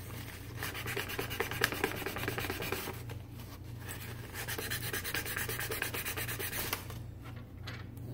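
Hand sanding a wooden knife handle with 400-grit sandpaper: quick back-and-forth strokes, with a short break about three seconds in and lighter strokes near the end.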